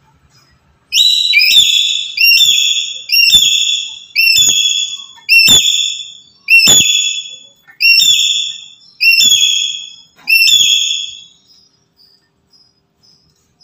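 Black-capped lory giving a series of about ten loud, high-pitched whistled calls, roughly one a second, each short and falling slightly in pitch; the calling stops near the end.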